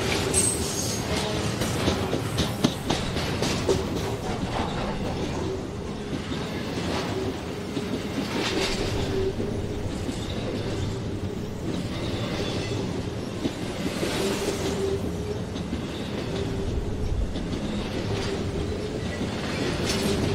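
Intermodal freight train cars rolling past close by. The wheels clack over the rail joints, with sharp clacks in the first few seconds, over a steady rumble and an on-and-off wheel squeal.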